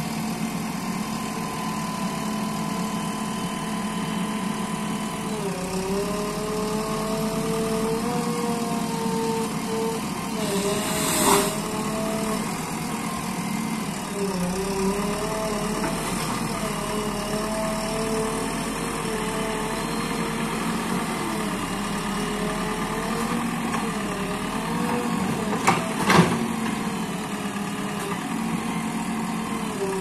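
JCB 3DX backhoe loader's diesel engine running, steady at first, then its pitch repeatedly dipping and rising as the hydraulics work the backhoe arm. A sharp knock partway through and two more close together later on.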